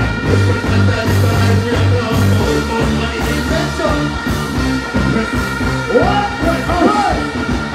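Live dancehall backing band playing through a large outdoor PA, with a heavy pulsing bass line and steady held tones. Short sung or chanted vocal phrases come in around six seconds in.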